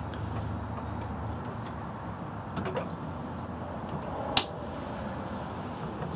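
Light clicks and knocks from a floor jack and wooden blocks being handled under a truck door, with one sharper click about four seconds in, over a steady background hum.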